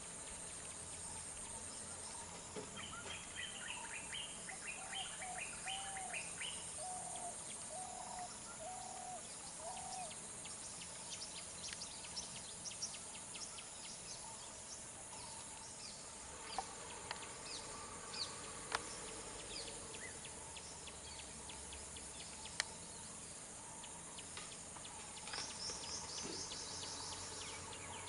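Tropical forest ambience: insects droning at a steady high pitch while birds call, a series of repeated notes over the first ten seconds and a fast high trill near the end. A few sharp clicks come in the middle.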